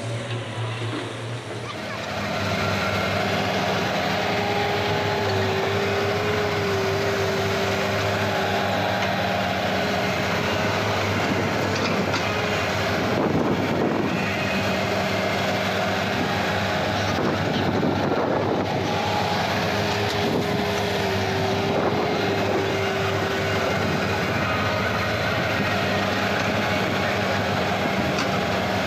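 Diesel engines of Komatsu crawler excavators running steadily while they dig, with a higher whine that comes and goes and wavers in pitch. The sound grows louder about two seconds in.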